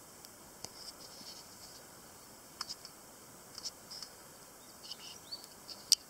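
Open campfire of sticks and paper crackling: scattered sharp pops and snaps over a faint steady background, with the sharpest snap just before the end.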